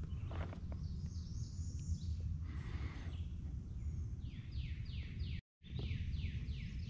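A songbird singing a run of quick falling notes, about four a second, with a moment of silence in the middle of the run, over a steady low rumble.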